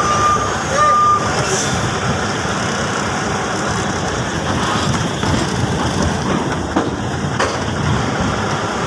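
A truck's reversing alarm beeps twice in the first second or so, then stops. Under it the truck's engine runs steadily as the truck backs up.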